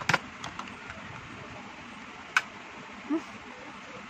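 Sharp clicks and taps of makeup items being handled, two of them loud (just after the start and about two and a half seconds in), over a steady hiss.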